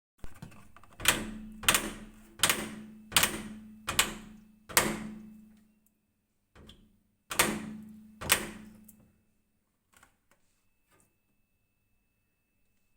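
Automatic washing machine's spin basket knocking: six sharp bangs about 0.7 s apart, each ringing out with a metallic hum, then after a pause two more bangs and a few faint knocks.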